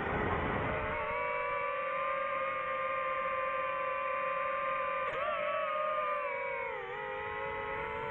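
DJI FPV drone's motors and propellers whining at a steady high pitch, with a rush of noise in the first second. The pitch dips briefly about five seconds in and again near the end.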